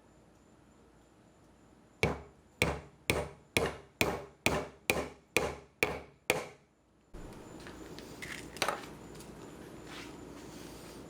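A hammer striking wood about ten times in a steady rhythm, roughly two blows a second, each with a short ring. It stops, then a steady chirring of insects comes in with one more knock.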